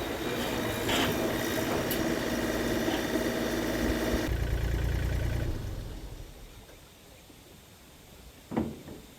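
An engine running steadily, which cuts off abruptly about four seconds in, leaving a low rumble that fades away over the next two seconds. A single sharp knock comes near the end.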